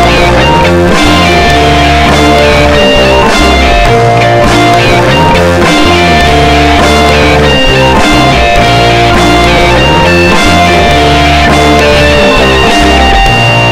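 Instrumental rock music: electric guitar playing sustained melodic lines over bass and drums.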